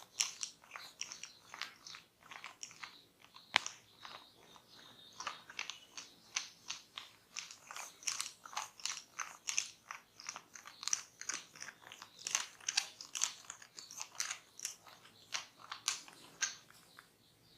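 A barber's hands working briskly over hair and skin in a massage: a continuous run of short, crunchy scratching and rubbing strokes, several a second, with one sharper click about three and a half seconds in.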